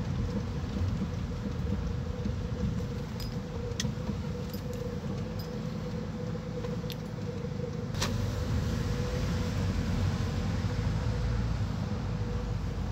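Car driving slowly, heard from inside the cabin: a steady low engine and road rumble with a faint steady hum. A few light clicks or jingles come through, the sharpest about eight seconds in.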